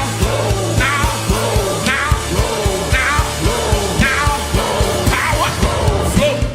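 Upbeat music with a fast, steady drum beat and a held bass, with a voice singing or shouting a short repeated phrase about once a second.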